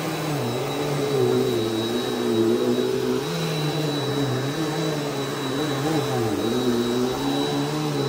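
Bissell PowerForce Helix Turbo Rewind upright vacuum cleaner running, its motor hum with a steady high whine above it. The motor's pitch sags and recovers several times.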